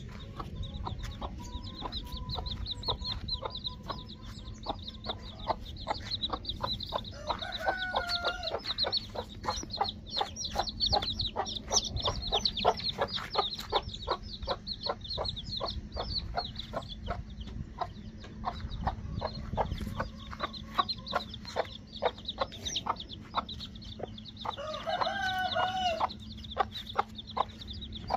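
Desi hen clucking over and over while her small chicks peep in high thin chirps. Twice a chicken gives a longer drawn-out call, about a second and a half each, once early and once near the end.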